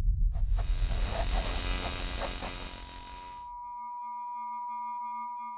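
Logo-reveal sound effect: a low rumble under a bright hiss that stops abruptly about three and a half seconds in, giving way to a steady, bell-like ringing tone of several pitches that slowly fades.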